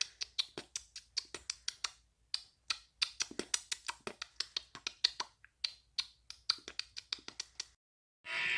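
Computer keyboard typing: quick, uneven key clicks, several a second, with a brief pause about two seconds in, stopping shortly before the end.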